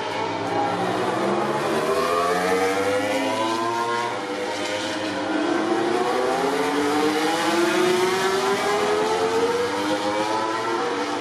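MotoGP racing motorcycle engines accelerating hard along the track, several overlapping engine notes climbing in pitch. There is a short drop in level about four seconds in, after which the notes climb again.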